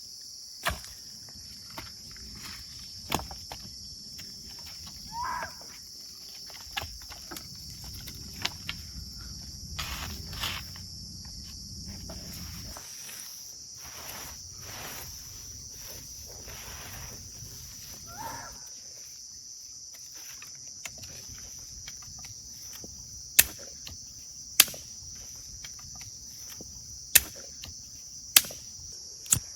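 Steady high-pitched insect chorus, with scattered knocks and two short calls from an animal. In the last few seconds there are five sharp, loud knocks.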